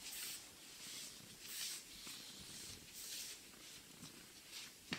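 A hand stroking and rubbing a Pomeranian's thick fur: soft, faint rustling strokes that come and go about once a second, with one sharp click near the end.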